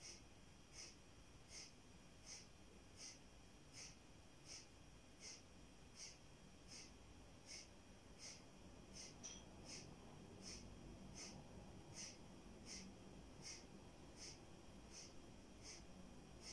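Faint kapalabhati breathing: short, forceful exhalations through the nose, evenly paced at a little over one a second.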